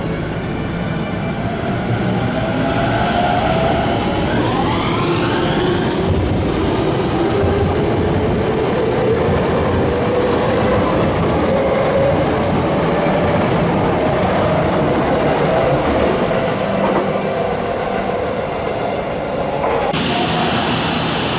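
Electric commuter train running on the track, its motor whine climbing steadily in pitch as it gathers speed, over a steady rail rumble. About four seconds in, a second, faster-rising whine sweeps up. Near the end the sound changes abruptly to a brighter, hissing whine.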